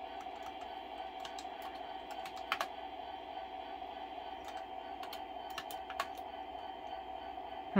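Typing on a computer keyboard: scattered key clicks, a louder pair about two and a half seconds in, over a steady background hum. A loud, steeply falling tone cuts in right at the end.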